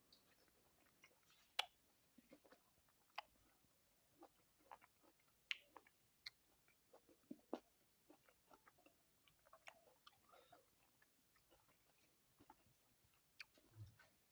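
Faint chewing and lip smacks of a person eating fruit, heard as scattered short wet clicks.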